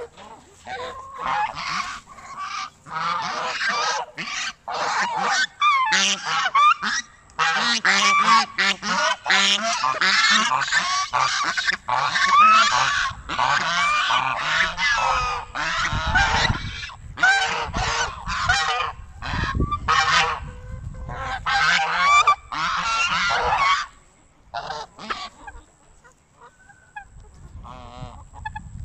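A flock of domestic geese honking, many calls overlapping. About 24 seconds in the honking dies down to a few fainter calls.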